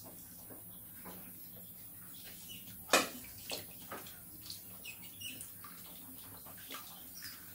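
Rats swimming and splashing in a shallow inflatable pool of water, with small knocks and splashes throughout and one sharp, loud knock about three seconds in.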